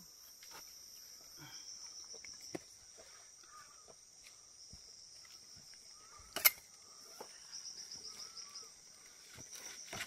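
Insects chirping in a faint, high, pulsing drone that comes and goes, with scattered small knocks and scrapes of a knife working dry resin off tree bark, and one sharp click about six and a half seconds in.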